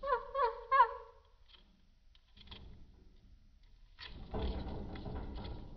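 A bird gives three short, quick calls about a second in, then after a pause a rustling, scuffling noise starts about four seconds in and carries on.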